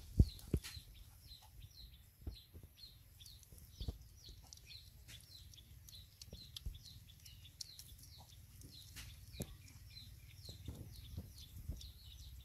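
Puppies feeding from a bowl, with scattered knocks and clicks, the loudest a sharp pair just after the start. Behind them, birds chirping: a run of short, high, falling chirps, several a second.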